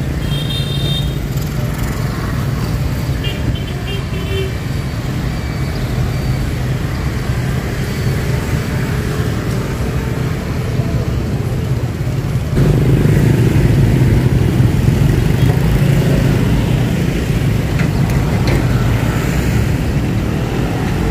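D13E diesel locomotive running under load as it hauls a train out of a station, a steady low engine hum that grows louder about halfway through.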